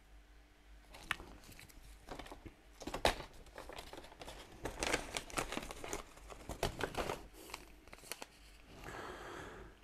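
Quiet rustling and crinkling of a brown paper bag and small ingredient packets being handled, as a series of short crackles spread over several seconds.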